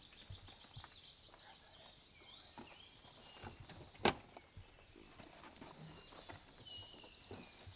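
Faint songbirds singing in woodland, short whistled phrases rising and falling, with one sharp snap about four seconds in.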